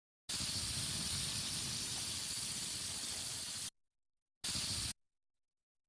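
Compressed air hissing from a tyre-inflating air hose: one long steady blast of about three and a half seconds that cuts off suddenly, then a second short burst of about half a second.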